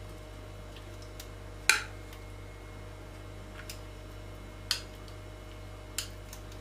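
Kitchen tongs clicking and tapping against a glass baking dish: a few sharp, separate clicks, the loudest nearly two seconds in and others near five and six seconds, over a steady low hum.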